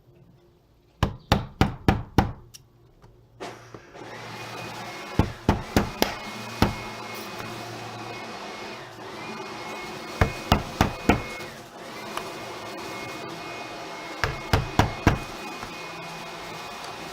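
Hammer tapping window glazing beading, in quick runs of four to six taps with pauses between them, with background music coming in about four seconds in.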